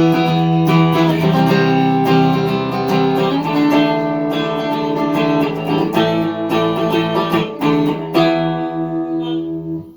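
Electric guitar with all three GFS Lil' Killers humbucker pickups selected, strumming a chord progression. The chords ring on, changing about three and a half seconds in and again just after eight seconds.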